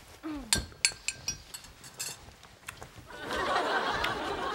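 Several light clinks of coffee cups and dishes being handled and set down. About three seconds in, sitcom studio laughter starts and carries on.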